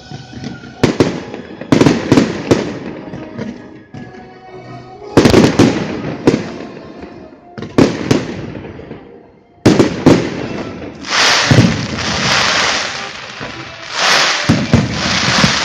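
Aerial fireworks going off one after another: loud bangs, each trailing off with an echo, then two longer stretches of dense crackling hiss near the end.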